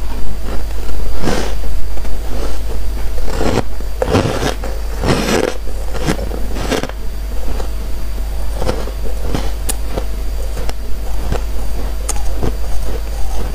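Close-up crunching and chewing of freezer frost in irregular bites, loudest about four to six seconds in, then lighter chewing.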